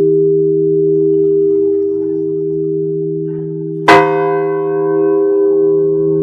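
Church bells in a belfry ringing with a long, steady hum, and one bell struck sharply about four seconds in, its ring fading slowly after the strike.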